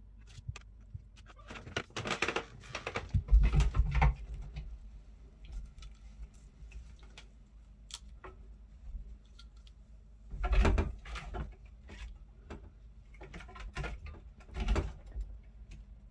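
Scattered light knocks, taps and rustling, with heavier low thumps about three to four seconds in and again near eleven seconds.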